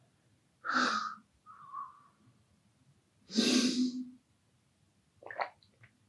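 A man's heavy breaths: a short one about a second in and a louder, voiced one about three and a half seconds in. A few soft clicks follow near the end as he drinks from a glass bottle.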